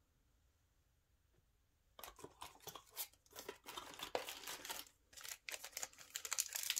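Foil Yu-Gi-Oh! booster pack wrapper crinkling and crackling as it is handled and torn open. It starts about two seconds in and grows louder toward the end.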